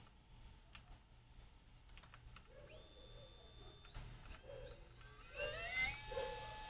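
Small brushless outrunner motor driven by a DIY ESC, running unloaded without a propeller. The drive first produces steady high-pitched electronic whine tones that step up about four seconds in. Then the motor spins up with a rising whine that settles into a steady tone, drawing under an amp.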